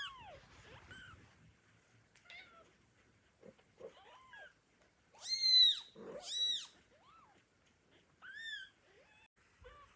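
Kittens mewing: a run of short, high-pitched cries that rise and fall, the loudest two coming back to back about halfway through and another near the end.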